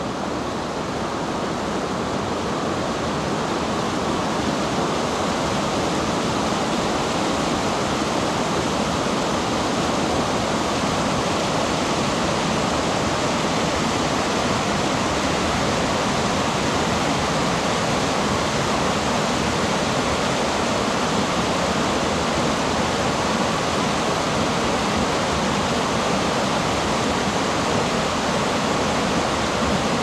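Mountain stream rushing over boulders in white-water rapids: a steady, continuous rush of water that grows a little louder over the first few seconds, then holds.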